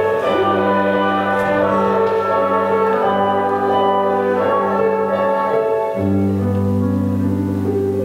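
Instrumental music with orchestral and piano sounds: sustained chords over a low held bass note, which fades out briefly about five seconds in and returns.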